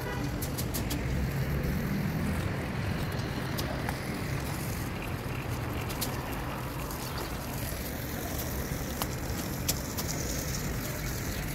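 Steady outdoor background noise: low wind rumble on the microphone over distant city traffic, with a few faint clicks.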